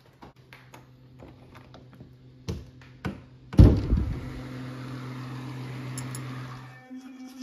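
A house door being opened into a room: a string of small clicks and taps, then one heavy thump about three and a half seconds in. A steady low hum with a hiss runs underneath and stops near the end.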